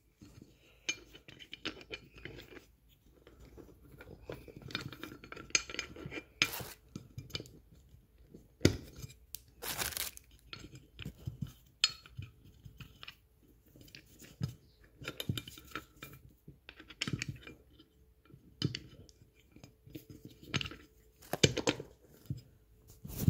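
Top-feed fuel rail and fuel injectors being pushed together by hand: irregular clicks, knocks and scrapes of metal and plastic parts, with a few sharper knocks along the way.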